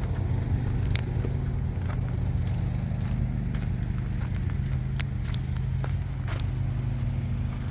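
An engine idling steadily with a low, even hum, with a few sharp clicks or crunches scattered over it.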